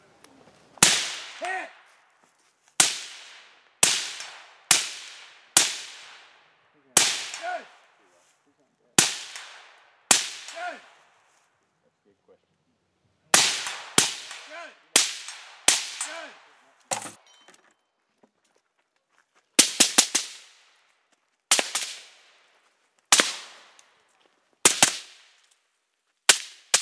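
Suppressed AR-15 rifle with a Dead Air Sandman S silencer firing about twenty shots in an uneven string, mostly about a second apart. There is a pause after the first dozen or so, and four shots come in rapid succession about two-thirds of the way through. A short ringing tone follows several of the shots.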